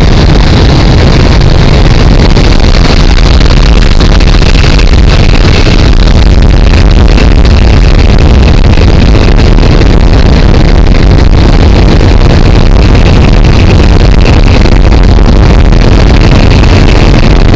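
Antonov An-2 biplane in flight: its nine-cylinder radial engine running steadily under loud, constant wind noise, with no change in pitch.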